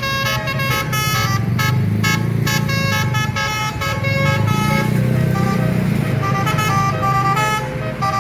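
Bus basuri horn, a multi-note musical air horn of the telolet kind, playing a long tune that steps quickly from note to note, over the bus's engine running.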